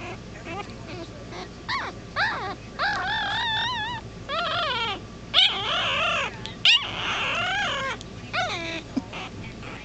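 Newborn Weimaraner puppy crying: a run of high, wavering whimpers and squeals, a few faint short ones and then louder cries, some held for about a second.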